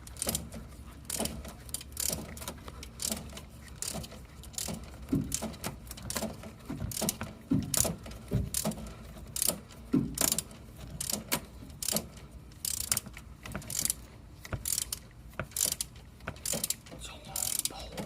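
Socket ratchet on a long extension clicking in short, irregular runs of rapid clicks as it tightens the ground cable's bolt.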